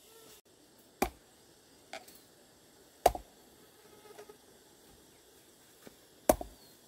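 A few sharp knocks at uneven intervals: three loud ones about a second, three seconds and six seconds in, and two fainter ones between them.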